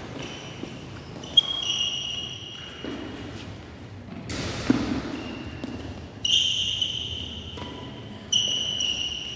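Court shoes squeaking on the badminton court mat as the player lunges and pushes back, three times, with footfall thuds and a couple of sharp taps of racket on shuttle.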